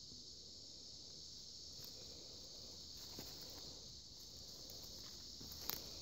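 Steady high-pitched insect chorus, with a few faint rustles and one sharp click just before the end.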